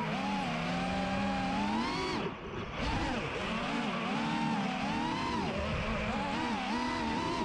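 A 5-inch, 6S FPV freestyle quadcopter's motors and propellers whining, the pitch rising and falling constantly with the throttle. About two seconds in, the whine briefly drops away as the throttle is chopped, then surges back.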